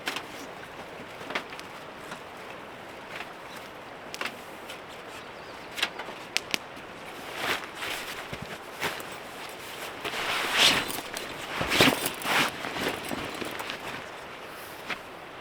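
Camp gear being handled and packed: scattered light knocks and clicks with bursts of rustling, busiest from about ten to thirteen seconds in.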